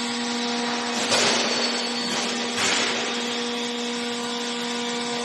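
Industrial double-auger meat grinder running, its electric motor giving a steady hum with a whir. Two louder rushing swells come about one second and two and a half seconds in.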